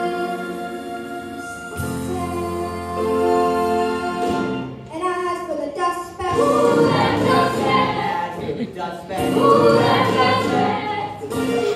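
Stage-musical ensemble number: several voices singing together as a choir over musical accompaniment. Long held chords fill the first few seconds, and the group singing grows busier and louder from about five seconds in.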